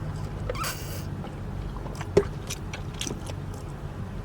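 Close-up eating sounds: chewing with scattered wet mouth clicks and a brief rustle, over a steady low hum.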